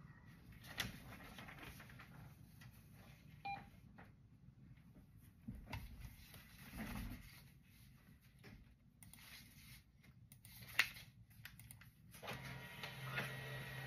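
Paper sheets handled and shuffled on a desk, with scattered clicks from a computer keyboard and mouse and a short beep about a third of the way in. About a second and a half before the end, an office printer starts up with a steady hum.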